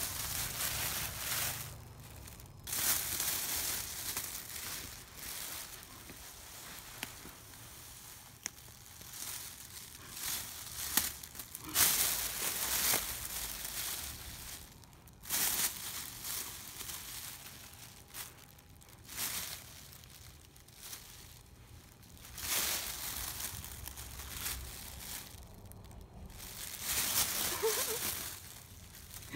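A thin plastic carrier bag crinkling and rustling in irregular bursts as a cat moves and plays inside it, with quieter pauses between the bursts.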